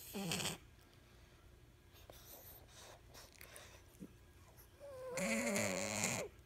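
Small dog breathing noisily through its mouth, which a finger holds open: a short wheezy breath at the start, falling in pitch, and a longer one about five seconds in with a wavering whistle-like tone. It is the laboured breathing of a dog whose nose is too small, with narrowed airways.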